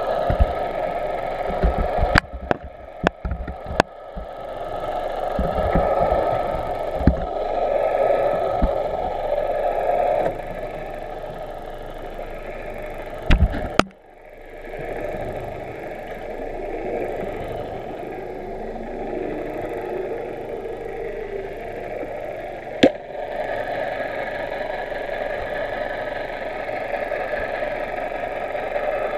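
Muffled, steady mechanical drone and water hiss picked up through an underwater camera housing as it moves over the riverbed, with a few sharp knocks. The sound drops away suddenly about halfway through, then builds back.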